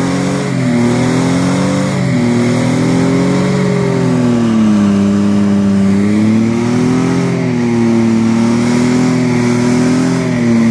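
Nissan 3.0i 4x4 engine revving hard under load and held at high revs, its pitch sagging and rising every couple of seconds as the stuck vehicle is worked out of the mud on a tow strap.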